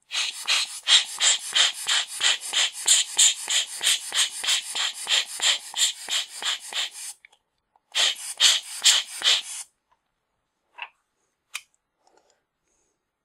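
Rubber hand air blower squeezed rapidly, puffing air at about four puffs a second for some seven seconds, then a shorter quick run after a brief pause, blowing dust off a camera lens element. Two faint clicks near the end.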